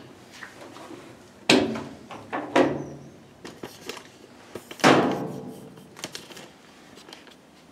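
A top-loading washing machine being shut: a few knocks and clunks as the metal drum flaps and the lid are closed. The loudest knock, about five seconds in, rings briefly.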